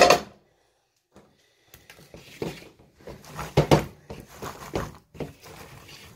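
A brief loud clatter, then irregular rustling and shuffling as a crocheted cloth is folded over a container of roasted chestnuts, the chestnuts shifting under it.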